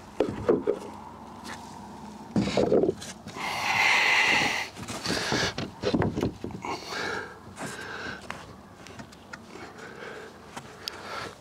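A sheet of plywood bumping and scraping against a wooden wall frame as it is stood up and shifted by hand into place, with scattered knocks, a couple of thumps about two and a half seconds in, and a scraping hiss around four seconds. A man's breathing comes between the knocks.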